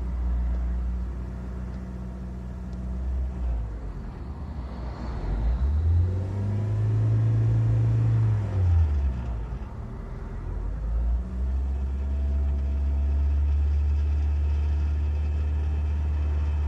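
Ford Fiesta 1.6 Zetec four-cylinder engine idling, revved up once about a third of the way in, held for a few seconds, then falling back to a steady idle. The owner reports a noise as the revs drop, which he takes to come from the cylinder head; the oil and check-engine lights have come on, though the oil level is correct.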